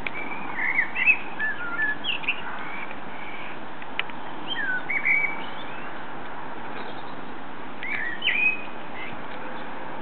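Common blackbird singing: three short phrases of fluty, gliding notes over a steady hiss, with a couple of single sharp clicks from the smouldering bonfire.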